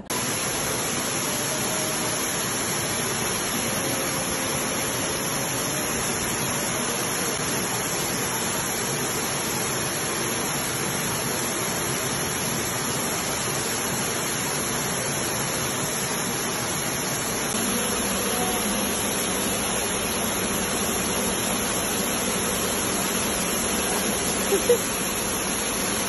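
An artificial waterfall, a curtain of water pouring from an overhead canopy into a shallow pool, giving a steady rushing splash that grows a little louder a few seconds past the middle. There is one brief sharp sound just before the end.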